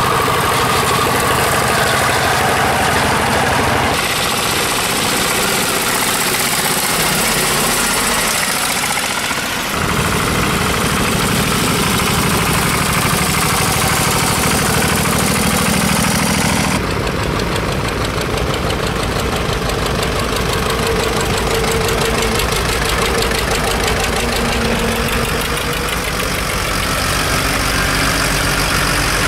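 Engines of small diesel tractors and a utility truck driving past one after another, with a knocking diesel note. The engine sound changes abruptly about 4, 10 and 17 seconds in as one vehicle gives way to the next.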